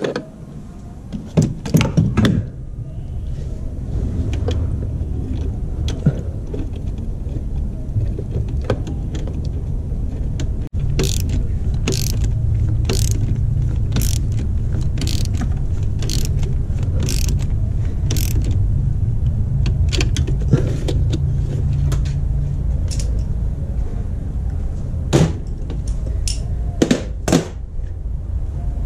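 Hand ratchet wrench clicking in runs of sharp strokes, over a steady low mechanical hum that builds up in the first few seconds.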